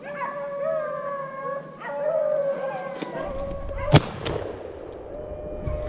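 Pack of beagles baying as they run a rabbit, with long drawn-out howls, then a single loud shotgun shot about four seconds in.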